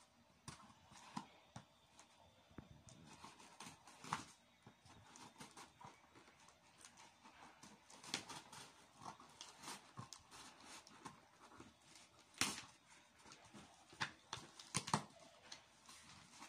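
Scissors cutting through a cardboard box: faint, scattered snips, scrapes and crackles of the cardboard, with a few louder clicks in the second half as the cut box is worked open by hand.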